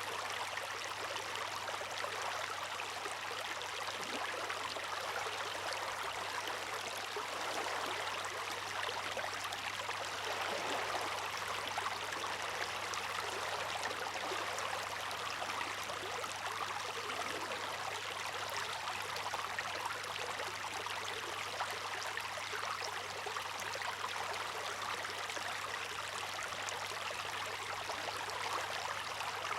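Water rushing and splashing steadily, an even hiss without the rise and fall of breaking waves, over a faint low hum.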